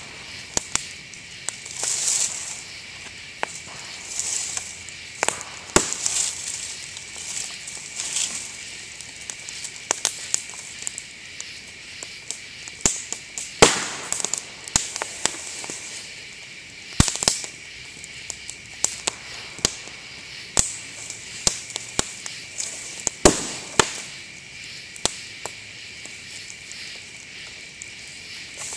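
Bonfire of dry bamboo canes and brush crackling, with frequent sharp pops and several loud bangs as the bamboo bursts in the heat. The loudest bangs come about six, fourteen, seventeen and twenty-three seconds in.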